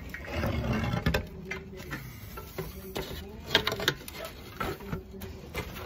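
Clay roof tile and slates being handled: a string of hard clacks, knocks and scrapes, with a quick cluster of sharper clacks about halfway through.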